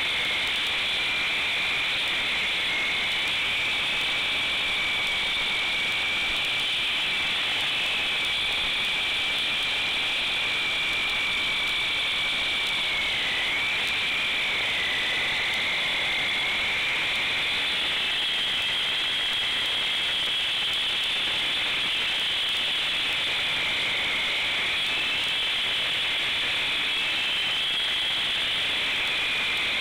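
Concrete saw wet-cutting a concrete slab: a steady high motor whine over a grinding hiss. The pitch sags briefly around the middle and again about four-fifths of the way through as the blade is loaded in the cut.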